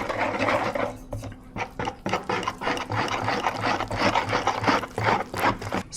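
Wire whisk beating thick chocolate cake batter in a bowl: a fast, rhythmic run of scraping and clicking strokes against the bowl, mixing wet into dry ingredients until the batter is smooth and free of lumps.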